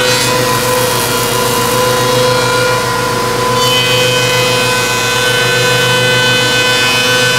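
Gongyou four-sided planer running, its spinning cutterheads giving a steady whine over the noise of a wooden board being planed as it feeds through.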